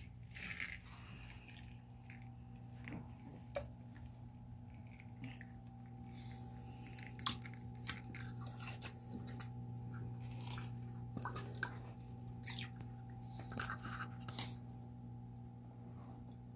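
Wet gravel and sand crunching and scraping under a hand as a cut plastic cup is pressed into it, in scattered short clicks and scrapes. A steady low hum runs underneath.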